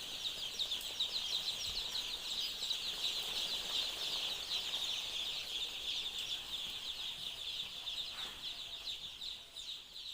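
A large flock of layer chicks in a brooder peeping together: a dense, high-pitched chorus of many short, falling cheeps overlapping, easing off slightly near the end.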